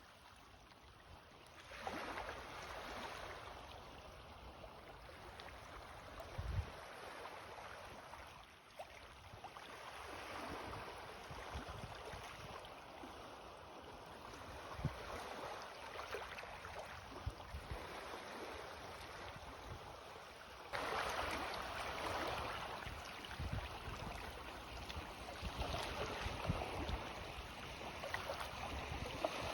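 Small sea waves lapping in on the shore with the incoming tide, each one swelling in and washing back. The strongest surges come about two seconds in and about twenty-one seconds in.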